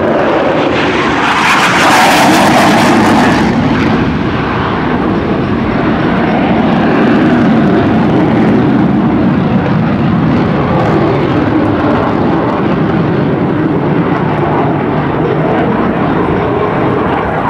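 The twin turbofan engines of an F/A-18 Hornet jet making a low pass, at their loudest with a hissing crackle about two seconds in, then settling into a steady jet rumble.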